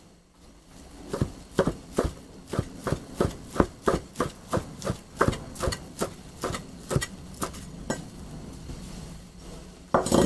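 Chef's knife slicing fried tofu pouches into thin strips on a bamboo cutting board: the blade knocks on the board steadily, about three times a second, then stops. Near the end come a couple of louder knocks.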